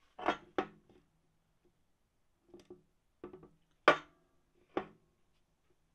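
A series of short metallic knocks and clunks, about seven, the loudest about four seconds in, as a brake master cylinder and servo are handled and set against each other on a steel workbench.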